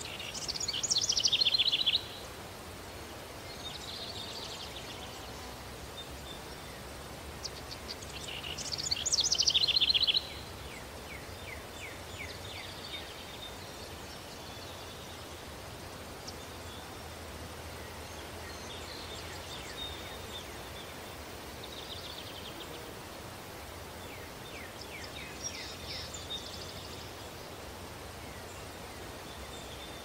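Daytime countryside ambience: a steady hiss of breeze with birds calling. A bird sings two loud, rapid trilled phrases, each building for about two seconds and then stopping sharply, one at the start and one about eight seconds later; after that come only fainter chirps.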